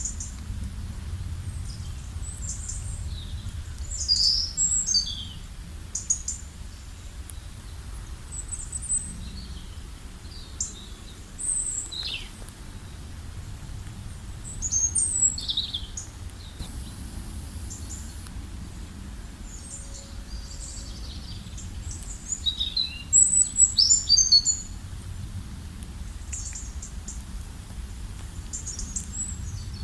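Wild songbirds chirping and trilling in short, high calls from several birds, with a burst of rapid calls near the end, over a low steady rumble.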